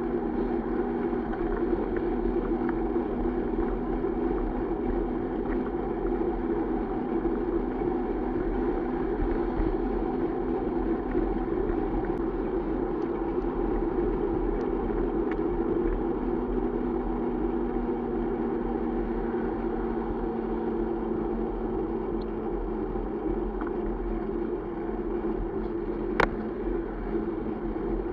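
Steady wind and road rumble heard from a camera on a mountain bike ridden fast along a road shoulder, with traffic passing close by. A single sharp click comes near the end.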